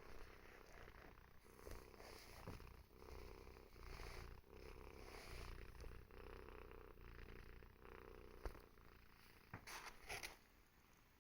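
Domestic cat purring softly, a steady rumble that swells and eases with each breath, the kind of sound that can be taken for snoring. A few small clicks near the end.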